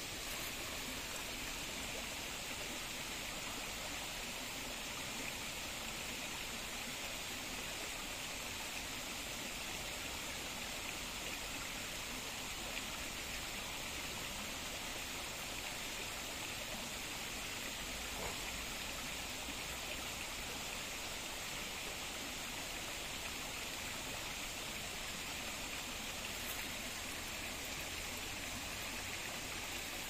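Steady rush of running water, an unbroken hiss of a flowing stream.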